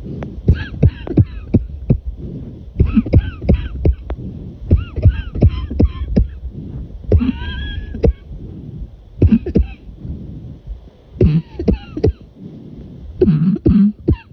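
A person coughing in repeated fits, about seven bouts of several quick, sharp coughs each with short pauses between, some coughs carrying a high, squeaky voiced tone.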